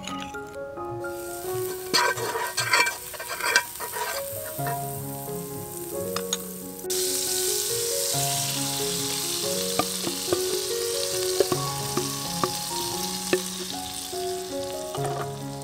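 A few clinks and scrapes of a utensil stirring, then about seven seconds in a steady sizzle of food frying starts suddenly and keeps going.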